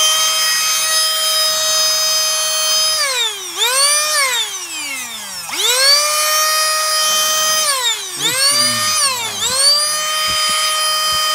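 Canless Air O2 Hurricane cordless electric air duster running its fan motor with a loud high whine, switched off and on several times: the pitch falls away each time it is released and climbs back up each time it is pressed again, with two short blips between longer runs.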